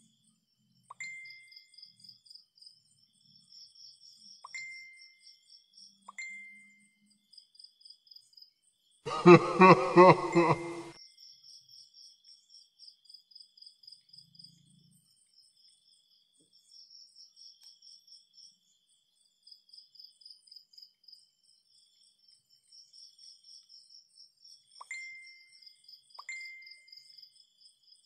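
Insects chirping in quick, high, rhythmic pulse trains, with a few sharp ringing pings near the start and again near the end. About nine seconds in, a loud pulsing burst of pitched sound lasts about two seconds and drowns the insects.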